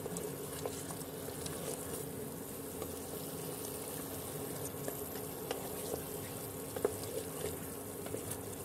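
Mutton stew bubbling and sizzling in its liquid in an open aluminium pressure cooker as it is stirred, with a few sharp spoon knocks against the pot and a steady low hum underneath.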